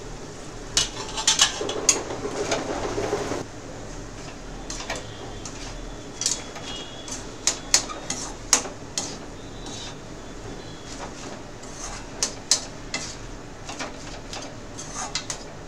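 Metal spatula scraping and clinking against an aluminium kadhai as chopped bitter gourd bhurji is stirred and fried, with sharp, irregular metal-on-metal clinks. A louder, denser clatter comes about one to three seconds in.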